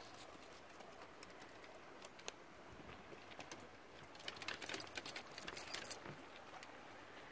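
Small metal pieces jingling in light scattered clicks that thicken into a busy jingle about four to six seconds in.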